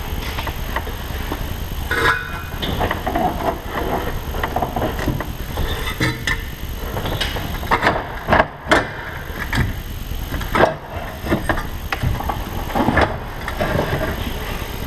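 Irregular knocks, clunks and scrapes of a Cummins engine's cooling fan and fan clutch being worked out past the radiator shroud by hand, with a few louder bangs partway through, over a steady low rumble.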